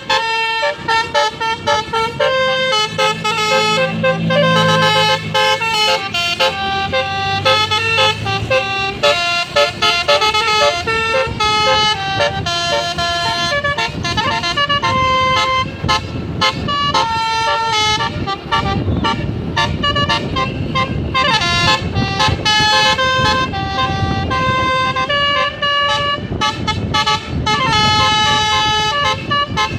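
Basuri telolet multi-tone musical bus horn playing a long melody, note after note in quick succession, over the low rumble of the bus engine.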